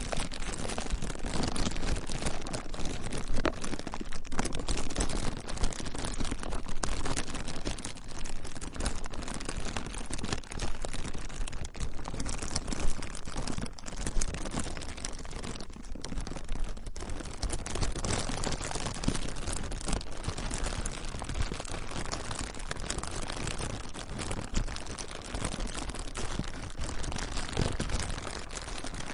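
Plastic being crinkled and crumpled by hand without pause, a dense run of sharp crackles.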